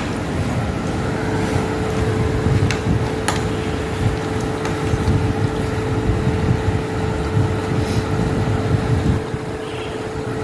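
Steady low rumble with a constant mid-pitched hum of running machinery, and a few light clicks of cutlery on plates.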